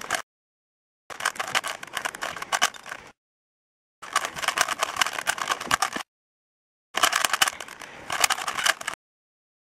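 Rubik's Cube being turned fast by hand: rapid plastic clicking and clacking as the layers rotate. It comes in stretches of about two seconds that cut off into total silence three times.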